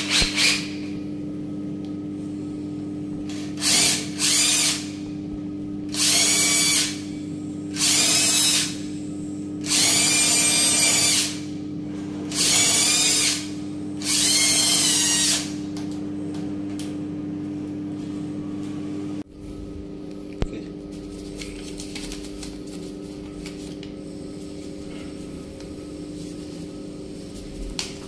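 Cordless drill boring into the stripped knob-screw hole of a wooden door, in about eight short bursts that each spin up and back down, over a steady hum. After a cut the drilling stops and only faint handling sounds remain.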